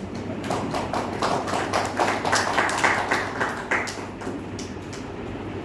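Scattered clapping from a small group, many irregular claps that build over the first couple of seconds and thin out after about four seconds.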